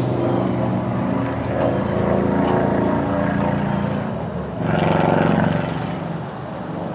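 Grapple truck's engine running steadily under hydraulic load as the boom and tongs work, swelling louder for about a second just before the five-second mark.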